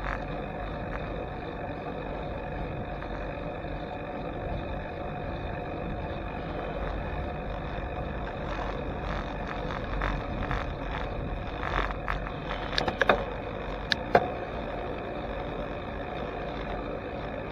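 Steady riding noise of a bicycle rolling on asphalt, picked up by a handlebar-mounted camera, with a short cluster of sharp knocks or rattles about three-quarters of the way through.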